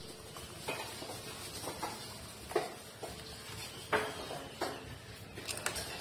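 Puppies suckling at their mother's teats: irregular smacking clicks, about a dozen, the loudest about two and a half and four seconds in.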